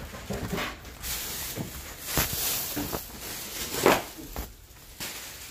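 Sneaker footsteps crossing a doormat and a wood floor, with rustling and a louder thump about four seconds in.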